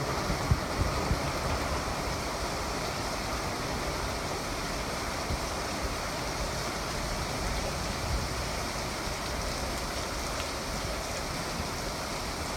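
Heavy rain pouring steadily in a severe thunderstorm, with a few wind gusts buffeting the microphone in the first second or so.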